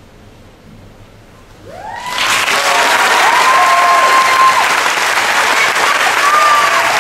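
Audience bursting into applause after a brief hush about two seconds in, loud and sustained, with whooping cheers rising and falling over the clapping.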